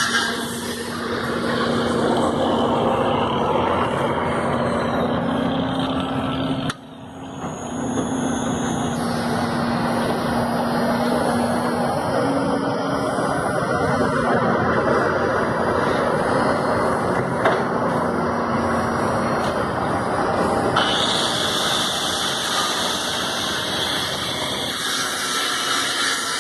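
Steady industrial machinery noise with a low hum, broken by an abrupt drop about seven seconds in before it resumes.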